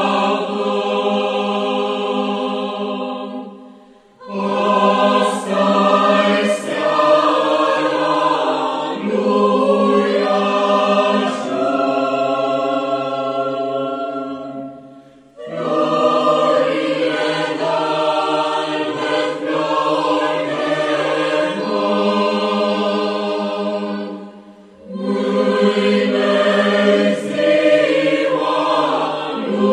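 A choir singing in long phrases of held notes, each phrase breaking off briefly about four, fifteen and twenty-five seconds in.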